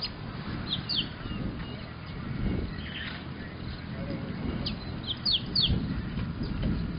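Small birds chirping: a few short, quick, falling chirps about a second in and a cluster of them around five seconds in, over a low rumble of outdoor background.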